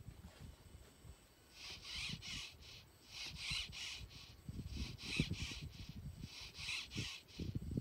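A bird calling outdoors: four groups of two or three short, harsh calls, about one group every second and a half. Low rumbling and a few dull thumps sit underneath.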